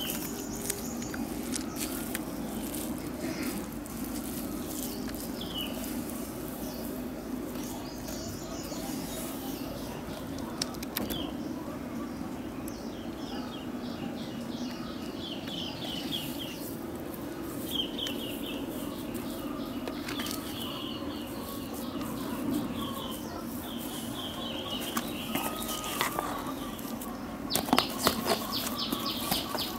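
Hands rustling and pressing coconut coir and crumbly potting soil into a pot around a planted branch, with scattered small crackles. Birds chirp in short repeated runs in the background, mostly in the second half.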